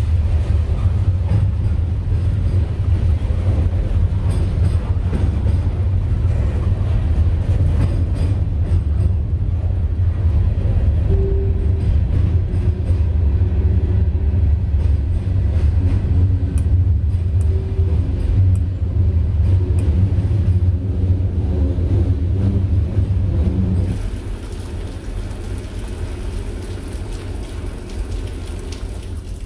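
A heavy, steady low rumble of a passing train. It drops off suddenly about 24 seconds in, leaving rain.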